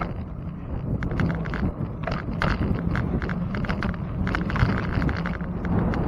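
Wind rushing over the microphone of a bicycle-mounted camera while riding, with irregular clicks and rattles from the bike rolling over a concrete path.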